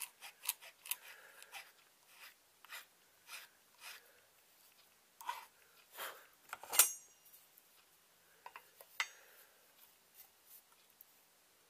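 Small hand file rasping in short strokes along the edge of a knife handle scale and its glued-on liner, then a few clicks and a sharp clink with a brief metallic ring about seven seconds in as the file and knife are handled.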